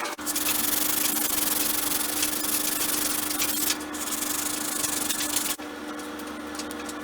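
A power sander abrading wood: a dense hiss over a steady motor hum. The sanding stops about five and a half seconds in, while the motor keeps running.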